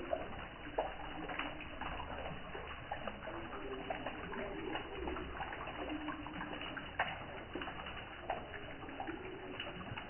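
Water from a small man-made waterfall trickling and splashing down a stone wall, steady with many small splashes. Short, low bird calls sound every second or two.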